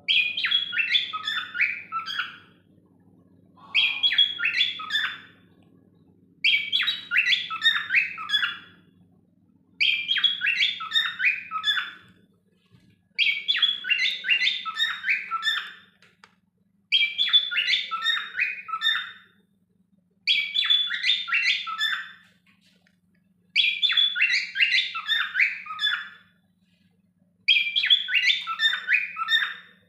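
Cockatiels singing: the same short warbling, chirping phrase repeated over and over, each burst lasting about two seconds, with a pause of about a second between bursts.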